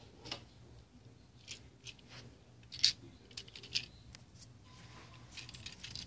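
Handling noise: a scattered run of light clicks and rustles, the sharpest click about three seconds in, over a faint steady hum.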